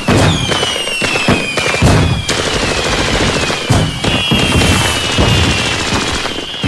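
Fireworks display: bangs and crackling bursts come one on top of another, with several whistling rockets whose whistles fall in pitch and overlap.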